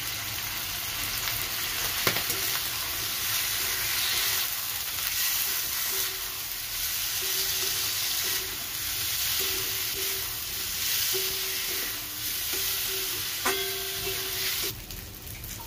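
Chicken pieces with onion and ground spice paste sizzling in a steel wok while they are stir-fried to brown the masala (kosha), with a metal spatula stirring. Two sharp knocks, about two seconds in and near the end.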